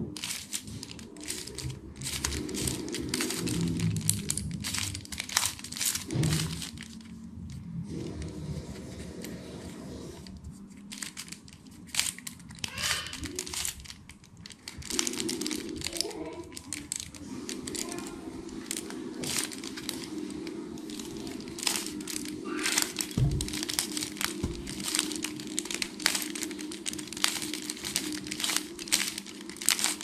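Plastic 3x3 Rubik's cube being turned by hand: rapid clicking and clacking of its layers in quick runs, with a few brief pauses.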